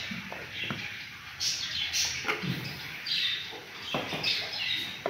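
Birds chirping, short high chirps coming every second or so, with a few faint clicks.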